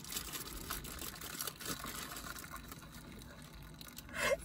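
Hot water being poured from a kettle into a bowl of instant noodles, a steady pour of liquid into the bowl. A woman's brief laugh comes in near the end.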